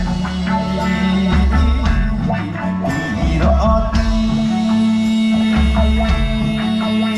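Live band playing an instrumental passage of a rock song: guitar lines over bass and drums.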